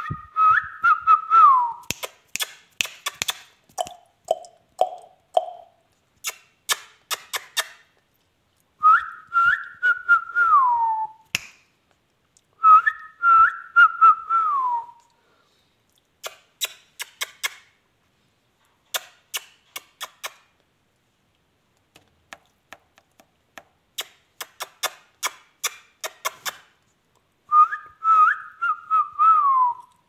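Indian ringneck parakeet whistling the same short tune four times, each phrase wavering and then sliding down at the end, with a few short lower notes about four seconds in. Runs of sharp clicks fill the gaps between the phrases.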